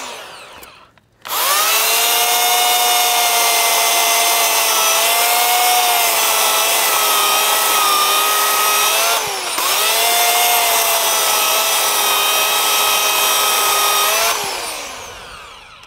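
Webb corded electric chainsaw starting about a second in and cutting through a log, a steady high motor whine over the chain ripping through the wood. Its pitch sags briefly about two-thirds through. Near the end it is released and winds down with falling pitch.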